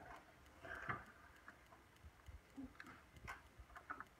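Quiet classroom with scattered faint taps and clicks, and a brief faint voice about a second in.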